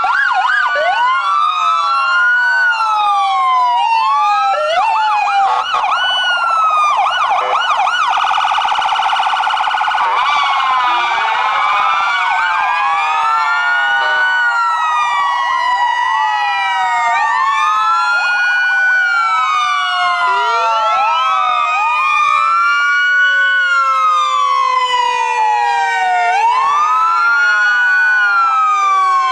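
Several sirens wailing at once, their rising-and-falling sweeps overlapping every two to three seconds, with a quicker yelp for a few seconds near the start. One tone falls slowly and steadily throughout.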